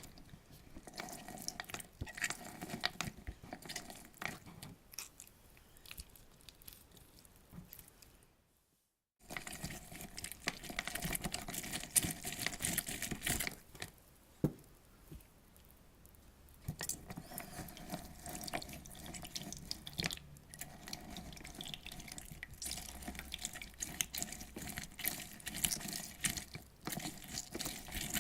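Lemon halves being squeezed by hand on a lemon squeezer: wet squelching with juice dripping and irregular small clicks and taps. The sound cuts out briefly about nine seconds in, then carries on.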